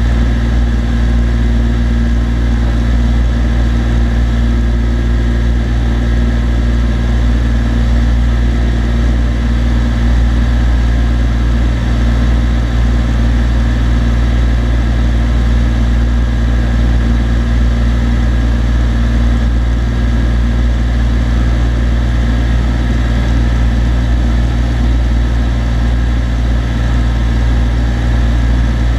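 Cessna TU-206D's turbocharged six-cylinder engine and propeller running steadily in flight, a loud, even drone that holds the same pitch throughout.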